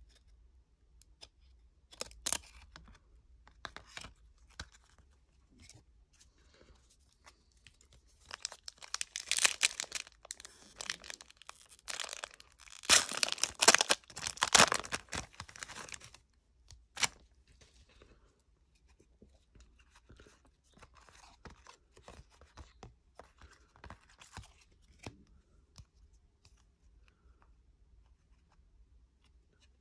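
Foil trading-card pack being torn open, a loud crinkling rip through the middle. Scattered soft clicks and rustles of the cards being handled come before and after it.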